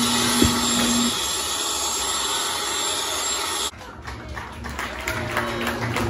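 Hand-held hair dryer blowing with a steady hiss, then cutting off suddenly a little over halfway through.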